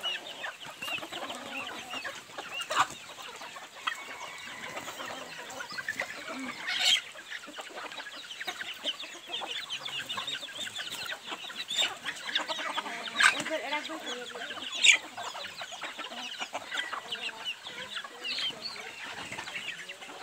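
A flock of free-range hens and roosters clucking and calling continually as they forage. A few short, sharp sounds stand out louder than the rest, the loudest about seven and fifteen seconds in.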